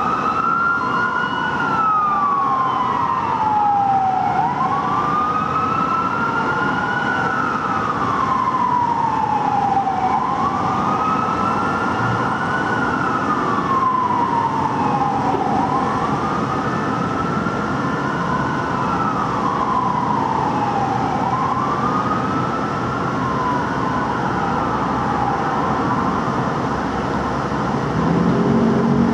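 Fire truck's Whelen electronic siren on a slow wail, rising and falling about every five and a half seconds, over the noise of the trucks on the road. A brief low steady tone joins near the end.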